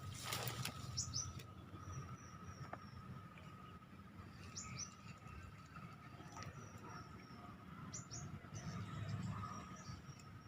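Small birds chirping on and off, quick high falling chirps in short groups every second or two, over a faint steady high tone and low outdoor background noise.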